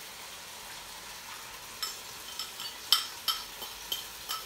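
Onion and tomato sizzling in a wok as a sardine-and-egg mixture is poured in. From about two seconds in, a spoon scraping out the ceramic bowl clinks against it about eight times, each clink sharp and ringing.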